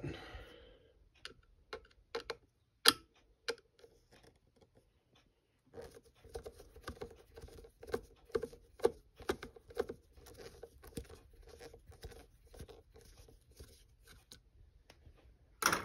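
Hand screwdriver turning out a small mounting screw on a battery's BMS circuit board: a few separate sharp clicks, then from about six seconds in a long run of small irregular clicks and scrapes as the tip works in the screw head.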